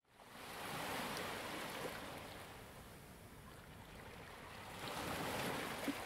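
Sea surf washing in, fading up from silence and swelling twice: once about a second in and again near the end.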